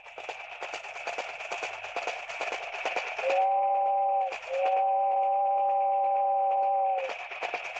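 A dense, steady clattering rattle with a horn sounding twice over it in the middle: a short blast, then a longer one of about two and a half seconds.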